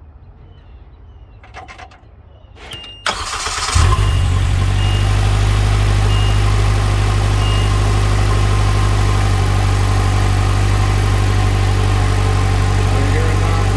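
A freshly installed car engine has a couple of clicks from the key, then is cranked about three seconds in, catches within a second and settles into a steady idle. Faint short beeps sound a few times over the idle.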